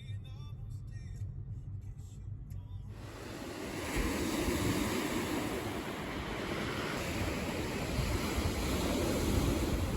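Low rumble of a car interior, then, after about three seconds, an abrupt cut to a louder, steady rushing noise that swells slightly toward the end.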